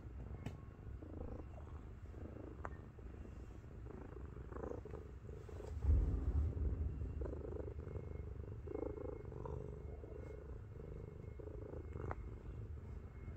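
A large 7.5 kg domestic cat purring close up while lying on a person's chest: a steady, low, tank-like purr that swells louder about six seconds in.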